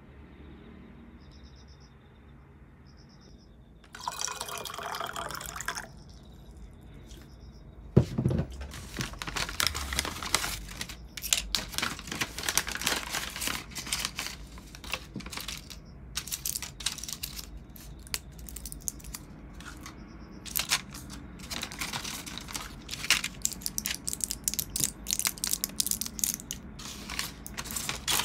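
Water running from a tap for a couple of seconds, then a long stretch of irregular splashing and clattering, as of things being rinsed and handled in a sink.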